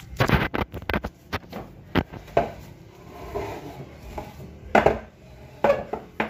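Irregular knocks, clicks and rubbing from handling close to the microphone. The loudest knocks come in a quick cluster at the start and again about five seconds in.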